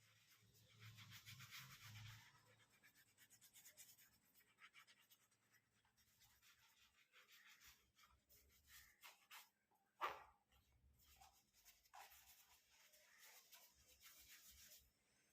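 Faint scrubbing of a brush with toothpaste on a white shoe: quick scratchy strokes in spells, with one brief louder knock about ten seconds in.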